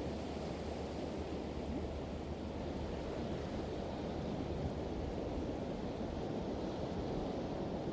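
Pacific Ocean surf washing steadily onto the beach, an even rushing noise with no single wave standing out.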